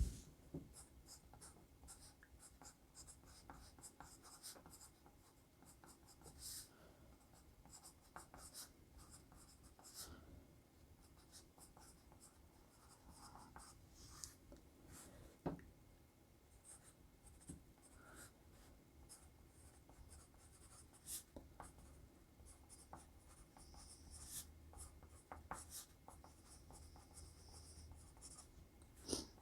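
Unsharpened 2mm graphite lead of a Kita-Boshi mechanical pencil writing: faint, irregular scratching strokes.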